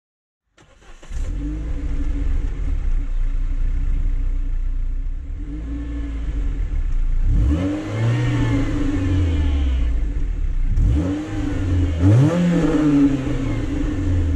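Renaultsport Clio 197's 2.0-litre four-cylinder engine idling through its exhaust, revved twice, each rev rising in pitch and falling back to idle.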